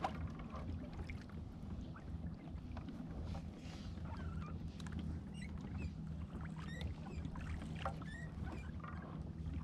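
Water sounds around a fishing kayak drifting on calm water: light lapping against the hull over a low steady rumble, with a few faint short high squeaks in the second half.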